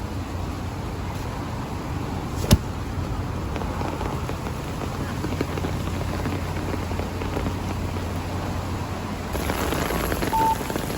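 Typhoon wind and rain: a steady rush of rain with wind rumbling on the microphone, and one sharp knock about two and a half seconds in. Near the end the hiss grows brighter and a few short tones sound.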